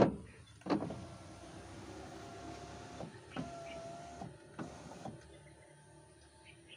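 BMW E46 electric window regulator motor running steadily with a faint whine as it drives the door glass. It stops with a click about three seconds in, then runs again until about five seconds in. This is a test of the cable regulator after its stripped drive gear was recut by hand, and it is now working.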